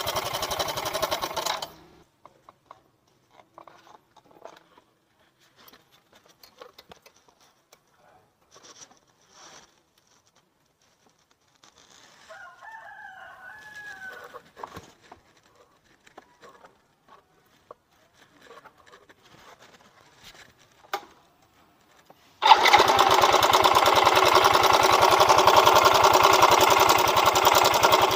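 Yamaha Mio M3 125 scooter's single-cylinder engine running rough, cut off about two seconds in; a rooster crows in the quiet that follows, amid small clicks. About 22 seconds in, the engine is started again and runs louder to the end, still rough; the roughness is traced to a broken cam chain tensioner spring.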